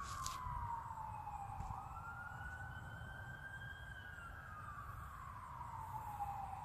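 Emergency-vehicle siren wailing, its pitch sliding slowly down, climbing back, and sliding down again.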